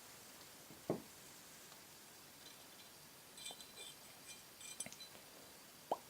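Faint clinking of small steel parts as the firing pin assembly is taken out of a Glock pistol's slide: a cluster of quick, high, ringing clinks in the middle, with a soft knock about a second in and another near the end.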